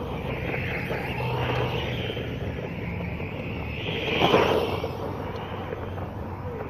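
Wltoys 12428 1:12 4WD RC buggy's 540 brushed electric motor and drivetrain whining as it drives across dry grass, with a louder swell about four seconds in.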